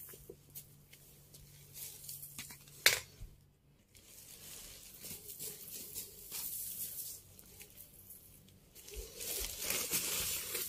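Soft grass broom sweeping scattered rose petals across a tiled floor: short brushing swishes in several bouts, with a sharp tap about three seconds in.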